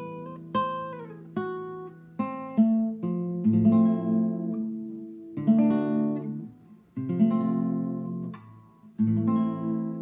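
Solo acoustic guitar: a few single picked notes, then fuller strummed chords that ring and fade, with brief pauses between phrases.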